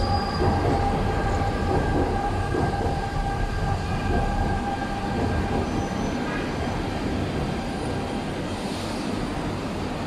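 Guangzhou Metro L5 (SFM37) linear-induction-motor train pulling into the station, its IGBT-VVVF inverter giving a whine of several steady tones over the rumble of the cars as it slows. The tones die away near the end.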